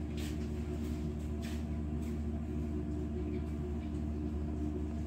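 Steady low drone of a ferry's engines and machinery, heard on deck, with several held low tones that do not change.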